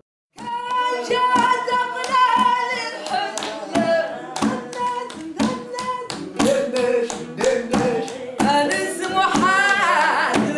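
Music: a sung melody over sharp hand percussion keeping a brisk, even beat.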